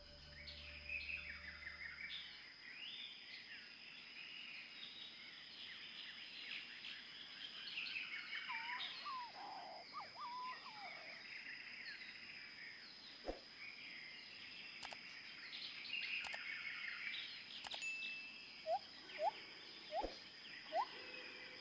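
Small birds chirping and twittering in the background, with a few faint ticks in the middle. Near the end one bird gives a run of short rising calls, about two a second.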